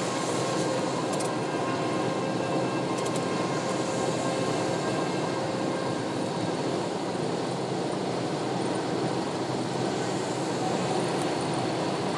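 Steady road noise heard inside a car's cabin at motorway speed on a wet road: tyres hissing on the rain-soaked surface over a constant low rumble.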